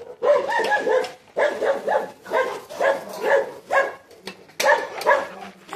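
A dog barking over and over, about two barks a second, with a brief pause near the middle.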